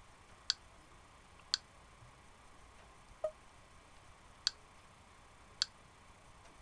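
Short, sharp clicks as a finger taps the LG T385's touchscreen: two about a second apart, a softer, lower blip a little past three seconds in, then two more about a second apart.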